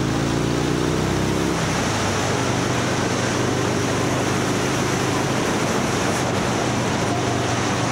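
Vehicle engine running under heavy wind rush on the microphone while riding. The engine's pitch shifts for the first second and a half, then holds steady.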